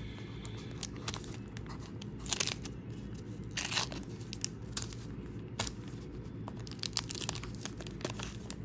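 Wax-paper wrapper of a 1985 Fleer baseball card pack being peeled and torn open by hand: soft crinkling broken by several louder, short tearing crackles.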